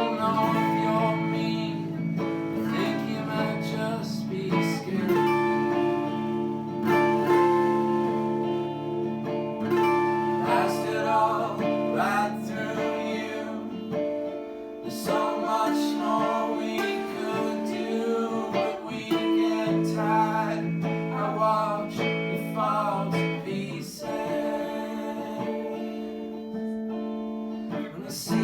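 Acoustic guitar music, strummed and plucked, with a voice singing at times.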